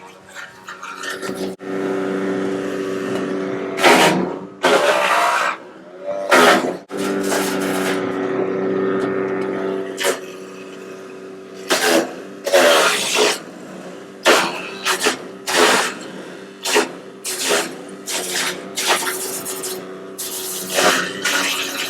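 Petrol drum wood chipper running, driven by a Briggs & Stratton 23 hp twin-cylinder engine, with repeated loud crunching bursts as branches are fed into the drum and chipped.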